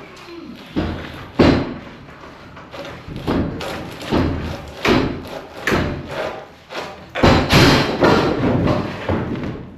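Repeated heavy wooden thumps and knocks, about one a second, from wooden floor framing being torn out and dropped during demolition, with a louder run of knocks near the end.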